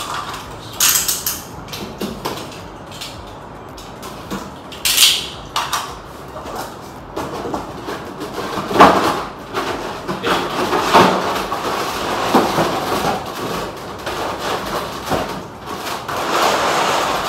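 Cardboard packaging being opened and handled: the lid and inner packing slide and knock, with a few sharp scrapes. Then comes a longer stretch of rustling as the plastic-bagged vinyl figure is lifted out of the box.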